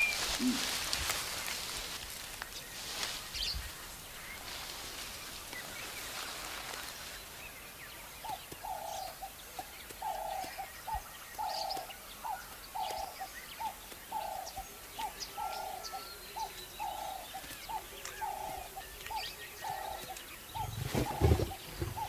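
A bird repeating a short call over and over, about once a second, from about eight seconds in, over a soft hiss. A heavy low thud near the end is the loudest sound.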